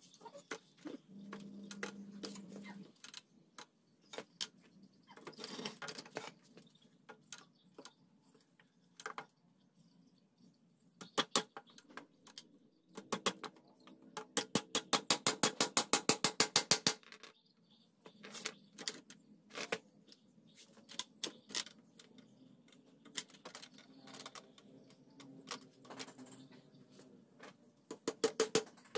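Hammer driving nails into a wooden frame: scattered single knocks and taps, with a fast run of blows, several a second, lasting about four seconds near the middle.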